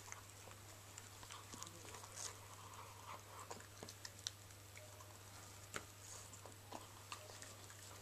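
Old English Sheepdog puppy eating soft wet food from a stainless-steel bowl: faint, irregular chewing with scattered sharp clicks.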